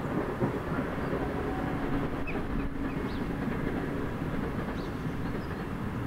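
Steady low rumble of a passing vehicle, with a few short high bird chirps over it.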